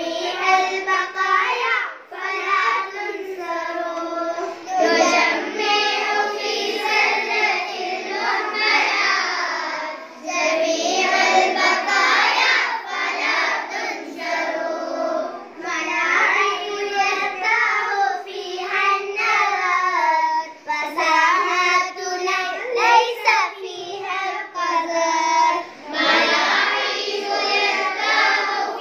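A class of children's voices chanting aloud together in a sing-song unison, with brief pauses between lines.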